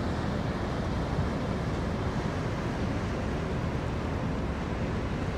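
Steady wind rumble on the microphone of a motor boat under way, over the boat's running noise and water rush.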